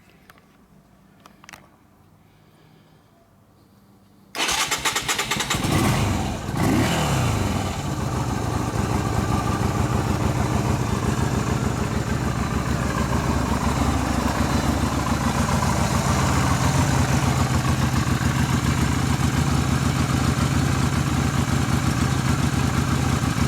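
A few faint clicks, then the Yamaha XV250 V-Star 250's air-cooled V-twin starts abruptly about four seconds in, revs briefly, and settles into a steady idle. It runs with a newly fitted aftermarket pod air filter in place of the stock air cleaner.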